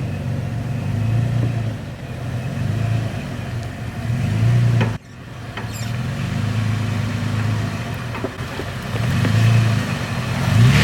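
A four-wheel-drive vehicle's engine running at low speed, a steady low rumble that swells and eases. It cuts off abruptly about five seconds in and starts again at once.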